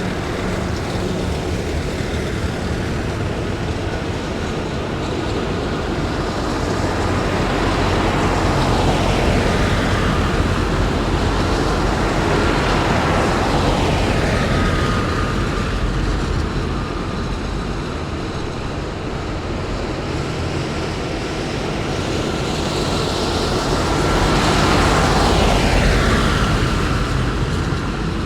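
A column of heavy military vehicles driving past one after another, the engine and running-gear noise swelling and falling away as each one passes, loudest about nine seconds in and again near the end. A steady high whine runs underneath.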